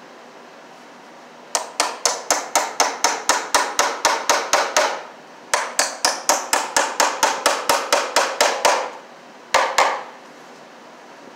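Hammer rapidly tapping nails to fasten a blue plastic electrical box to a wooden stud, about five quick blows a second in two long runs, then two last blows.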